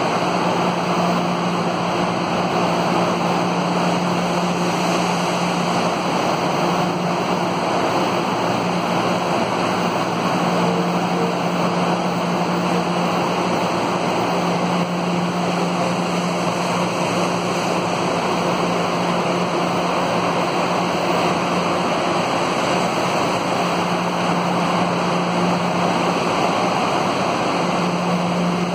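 Metro train noise: a steady rushing sound with a low hum that fades in and out several times.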